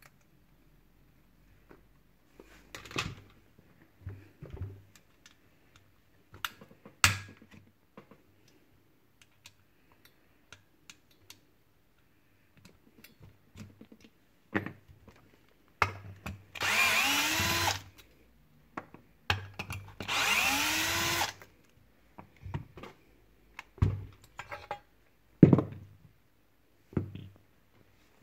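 Cordless drill-driver runs twice, about a second and a half each, with a rising whine as it spins up. Scattered clicks and knocks of small metal parts and tools being handled sound in between.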